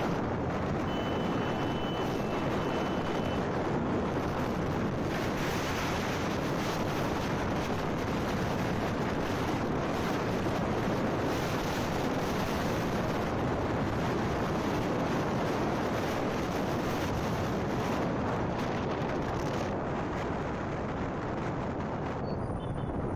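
Wind rushing over the microphone of a moving Royal Enfield Classic 350 motorcycle, with the bike's single-cylinder engine running under it at a steady level.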